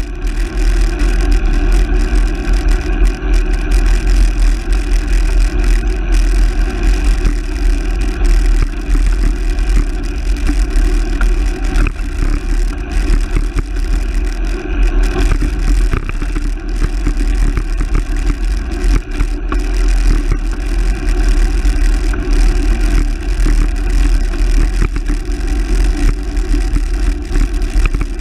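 Riding noise from a camera mounted low on a moving handcycle: a steady rumble of wind on the microphone with the front tyre running on the road, and car traffic alongside.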